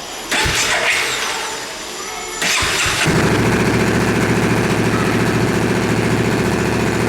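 Motorcycle with a Leo Vince GP Corsa carbon slip-on exhaust, baffle fitted, being started: the electric starter cranks for a couple of seconds, then the engine catches about three seconds in and settles into a steady, loud idle.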